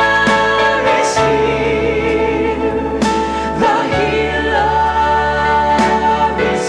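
Gospel music: singing held on long notes with vibrato over instrumental accompaniment, with bass notes that change about a second in and again about four seconds in.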